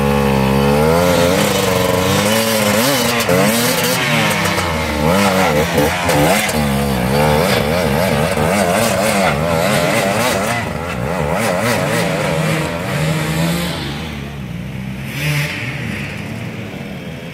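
Dirt bike engine revving hard, its pitch swinging up and down over and over as the bike fights for grip up a steep, muddy slope. The engine falls away over the last few seconds as the bike climbs off.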